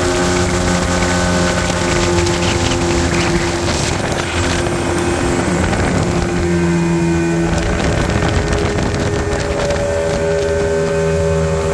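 Yamaha outboard motor running steadily at towing speed, with wind buffeting the microphone and the wake rushing behind the boat.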